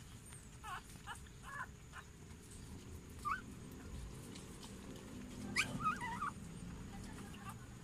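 Newborn puppy squeaking and whimpering in short, high-pitched cries while its mother licks it clean: several in the first two seconds, one more about three seconds in, and a louder run of squeaks about two-thirds of the way through.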